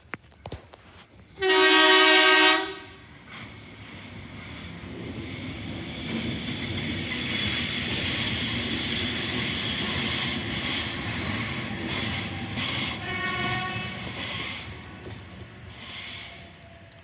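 A train horn sounds one loud chord blast of about a second. The passing train's rumble and wheel noise then build and fade away, with a second, shorter horn blast near the end.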